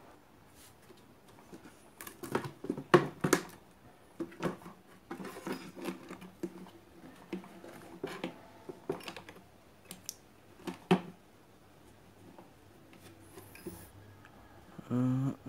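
Irregular sharp clicks and taps, as of hard plastic parts and tools being handled on a workbench, mostly between about two and eleven seconds in; a brief voice comes in at the very end.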